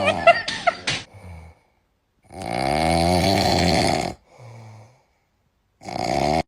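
A sleeping pet snoring: one long snore of nearly two seconds a couple of seconds in, a faint short one after it, and another loud one starting near the end that is cut off. A few brief sharp sounds come in the first second.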